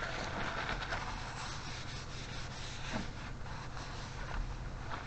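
Aerosol contact cleaner hissing as it is sprayed into an electric window switch, for about two and a half seconds, followed by a few light handling clicks.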